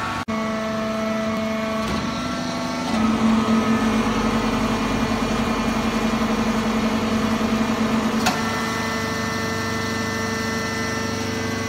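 Hydraulic baling press running with a steady motor and pump hum. A few seconds in it grows louder and pulses for about five seconds, then drops back to the steady hum after a sharp click.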